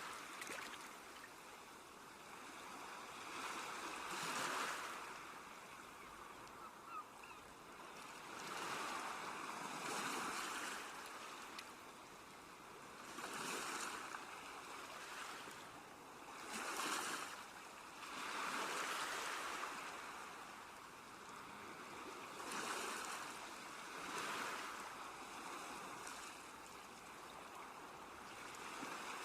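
Sea waves washing onto a shore, the surf hiss swelling and falling away every few seconds.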